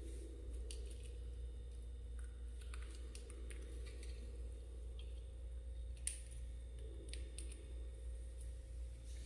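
Faint scattered small clicks and ticks over a steady low hum, with one sharper click about six seconds in.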